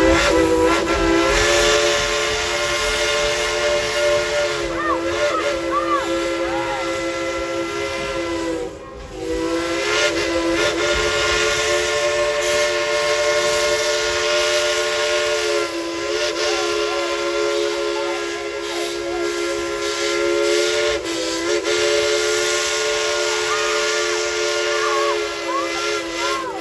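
Steam locomotive's chime whistle blown at length to play a tune: a chord of several steady tones that dips and wavers in pitch now and then and breaks off briefly about nine seconds in.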